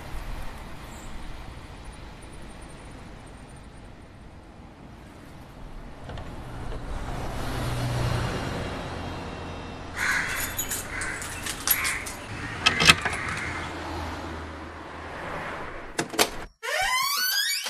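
A vehicle rumbles past, then keys clatter and a door lock clicks and a door opens in a run of sharp knocks and rattles. A short sweeping musical flourish comes right at the end.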